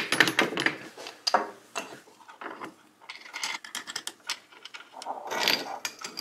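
Hand screwdriver driving a drywall screw into a hardwood block through a steel test fixture, a rapid run of clicks for the first half-second or so. Then scattered clinks and knocks of steel bolts, a nut and fixture parts being handled.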